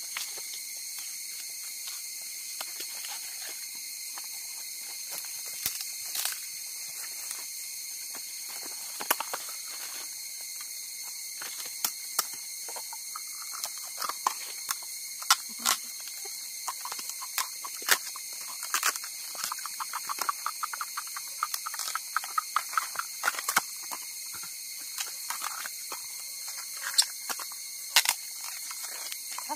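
Crisp snaps, taps and rustles of fresh bamboo shoots being handled and their sheaths peeled, with footsteps on dry bamboo leaf litter; the sharp clicks come thicker in the second half. A steady high-pitched insect drone runs underneath.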